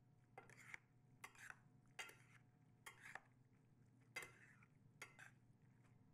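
Two metal utensils tossing sauced spaghetti in a stainless steel sauté pan: faint, irregular clinks and scrapes of metal on the pan, about a dozen of them.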